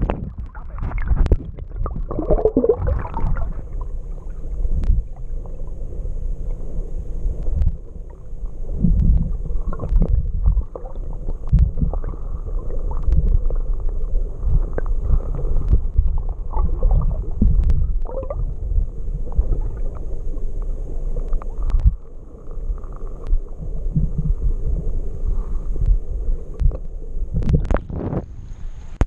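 Muffled water sloshing and gurgling heard through a waterproof camera housing held underwater in the shallows, stirred by a dog wading beside it, with irregular knocks and bumps on the housing and a couple of sharper splashes near the end.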